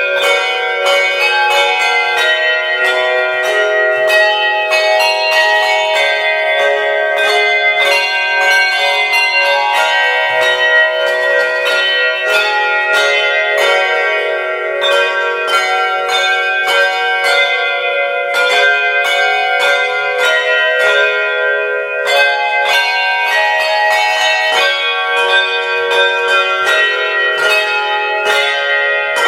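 A team of handbell ringers playing a traditional carol: a steady, continuous run of struck handbells, each note ringing on over the next.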